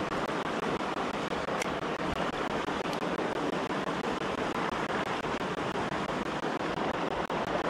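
Steady rush of river water, an even hiss with a few faint ticks.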